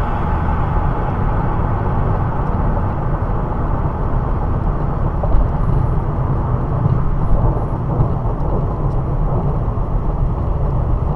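Car on the move: steady road and engine rumble, strongest in the low end.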